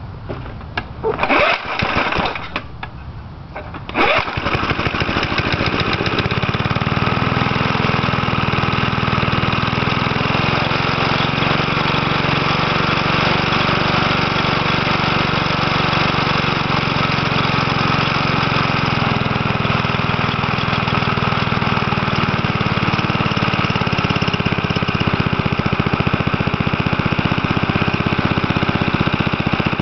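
1977 Briggs & Stratton 3 hp flathead lawn mower engine being cold-started in winter. A short burst comes about a second in, then the engine catches at about four seconds and runs steadily.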